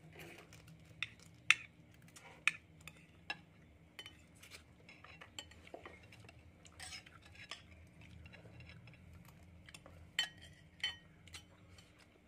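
Metal spoons clinking and scraping against ceramic plates and bowls as people eat, in sharp irregular taps scattered throughout.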